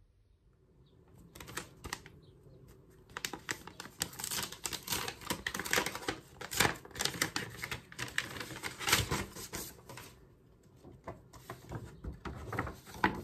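Paper rustling and crackling as an envelope is opened and a sheet of paper pulled out and unfolded. It is a dense run of crisp crackles, busiest in the middle, with a last flurry near the end.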